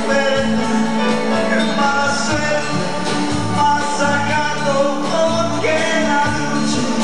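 Live dance band playing a moderato: a melody line with some sliding notes over a steady bass and drum beat.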